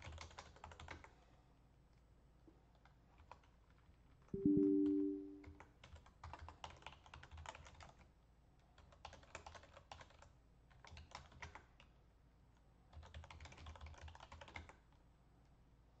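Typing on a computer keyboard in several short bursts of clicking, with a brief two-tone beep about four seconds in that is the loudest sound.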